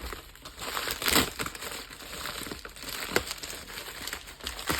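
Packaging being crinkled and handled as a parcel is opened, an uneven run of crackling, loudest about a second in.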